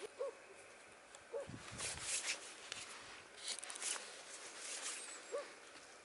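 Wood campfire embers crackling and sucuk sausages sizzling on the fire, in irregular sharp pops and short hissing bursts. Three short animal calls stand out, one near the start, one about a second and a half in, and one near the end.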